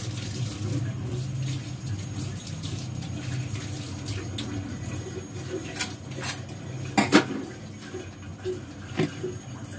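Kitchen clatter as utensils and containers are handled and set down: a few sharp clinks and knocks, the loudest a quick pair about seven seconds in, over a steady low hum.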